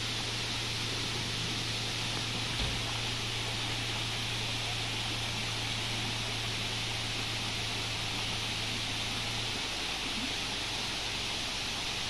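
Steady rush of a shallow rocky stream flowing over rocks at the head of a waterfall, with one brief low bump about two and a half seconds in.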